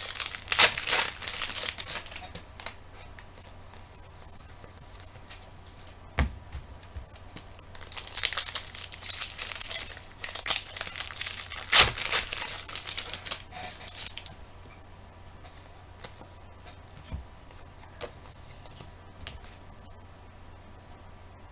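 Trading card pack wrappers being torn open by hand and crinkling, in three stretches of tearing: at the start, about eight seconds in, and about twelve seconds in. Between them are a few sharp clicks, and the sound turns to quieter rustling near the end.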